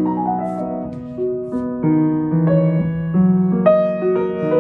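A Fazioli 9'2" concert grand piano being played: chords and a melody of held, ringing notes that change about every half second to a second.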